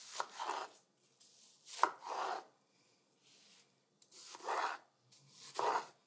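Chef's knife slicing through watermelon on a wooden cutting board: four separate cuts spaced a second or two apart, the second starting with a sharp tap.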